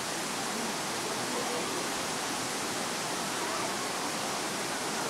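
Steady rush of moving water breaking on the shore, with faint distant voices underneath.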